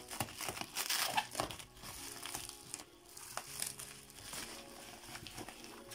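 Plastic bubble wrap crinkling and crackling as it is pulled off a magazine by hand. It is loudest in the first second or two, then drops to softer rustles.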